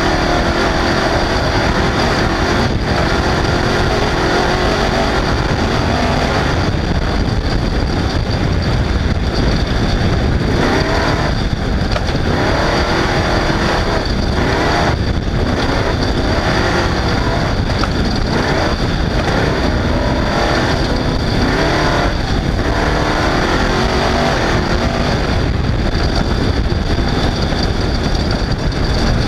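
Off-road race vehicle's engine running hard at speed, its revs rising and falling again and again, over a constant low rumble.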